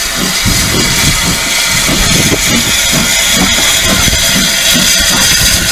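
Steady steam hiss from the cylinder drain cocks of a Hudswell Clarke 0-4-0 saddle tank steam locomotive, over a low, uneven rumble.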